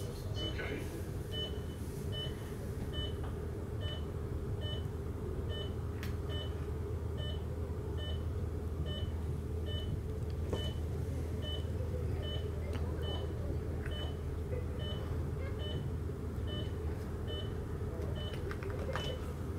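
Bedside patient monitor giving short, high-pitched beeps about twice a second over a steady low hum.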